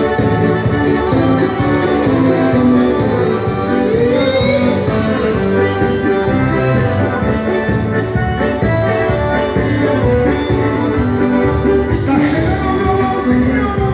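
Dance-band music playing at a steady beat, with melodic lines over a regular rhythm.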